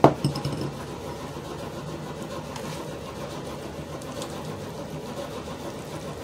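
Wooden spoon stirring cherries through thick melted chocolate in a glass bowl, opening with a sharp knock against the bowl, over a steady mechanical hum.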